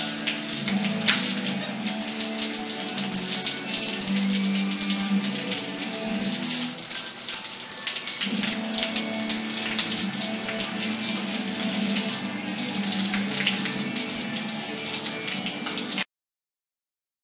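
Running shower water spraying and splashing on tile: a steady hiss of falling water with many small drip and splash ticks. It cuts off suddenly about sixteen seconds in.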